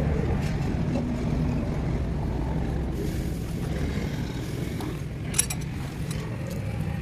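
A motor vehicle's engine running steadily with a low rumble, and a single sharp click about five seconds in.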